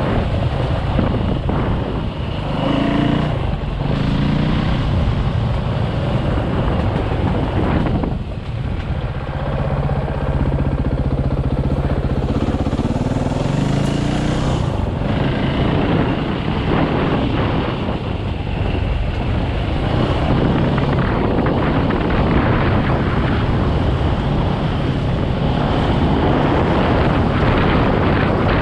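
KTM EXC 450 four-stroke single-cylinder enduro engine under way on a dirt trail, the revs rising and falling as the throttle is worked, with brief easings of the throttle about two and eight seconds in.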